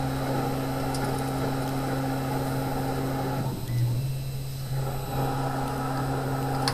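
Denford Turn 270 Pro CNC lathe running with its spindle at 2800 RPM, the tool taking roughing cuts on an aluminium billet: a steady machine hum with cutting noise over it. Midway the cutting noise drops away for about a second and a half as the tool steps out and back in between passes, then resumes.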